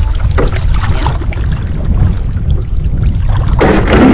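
Water splashing and lapping around a canoe as it is paddled in toward the shore, over a heavy rumble of wind on the microphone. Near the end a sudden, louder rushing noise sets in.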